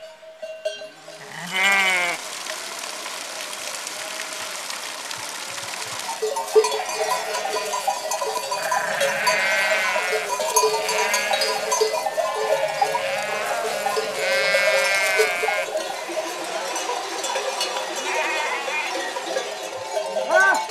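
A flock of sheep bleating, several wavering calls at a time. From about six seconds in, many bells worn by the flock clank and ring continuously as the animals move.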